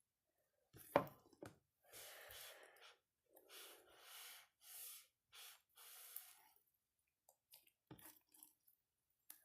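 Faint soft squishing of slime being worked together with shaving cream, in a series of short patches, with a few light clicks.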